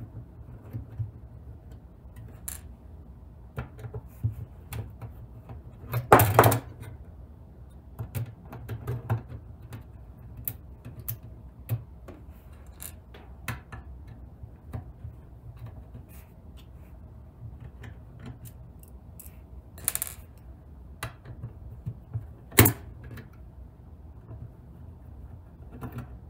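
Screwdriver taking small screws out of the metal plate inside a Dell Wyse 5060 thin client: scattered light clicks and ticks of the tool, the screws and the metal case. A few louder knocks come about six seconds in and twice more near the end.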